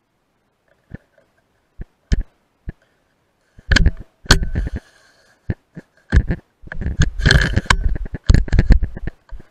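Handling noise on a rifle-mounted night-vision scope's microphone: a few sharp clicks, then from about four seconds in a run of loud, irregular knocks and rubbing as the rifle is shifted.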